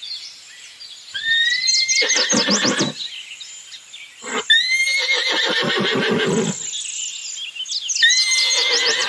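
Horse whinnying three times, about three seconds apart; each whinny starts with a high rising squeal and breaks into a quavering call that falls away. The horse is only a toy on screen, so this is a dubbed whinny sound effect.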